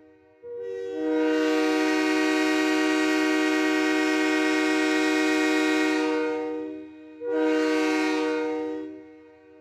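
Train horn sounding a chord of several notes: one long blast of about six seconds, then a short blast, each fading out at its end.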